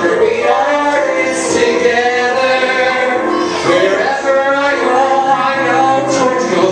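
Two male singers performing a duet into handheld microphones, with long held notes sung with vibrato.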